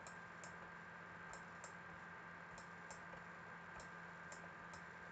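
Faint, uneven clicks of a computer mouse, about nine in all, over a steady low hum of near silence.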